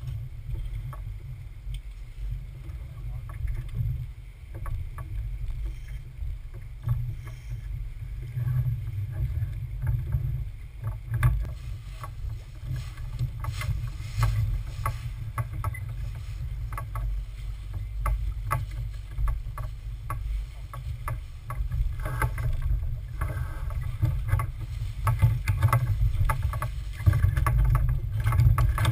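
Steady, muffled low rumble of wind and water against a sailboat under way, with scattered clicks and knocks of rigging and lines being handled, more frequent from about halfway through.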